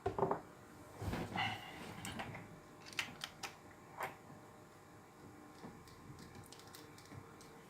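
Small, scattered clicks and scrapes of a lock pick and tension wrench working the pins of a pin-tumbler challenge padlock, with a few sharper taps in the first four seconds.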